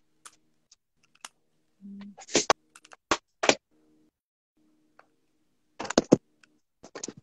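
Handling noise from a phone being picked up and moved: scrapes and sharp knocks in two clusters, about two seconds in and again about six seconds in.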